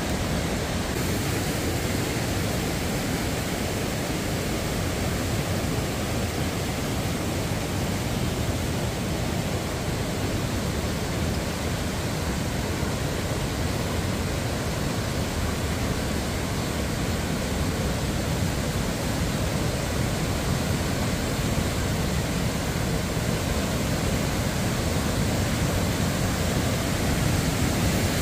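A rain-swollen mountain stream rushing over granite slabs and cascades: a steady wash of white water that grows slightly louder near the end.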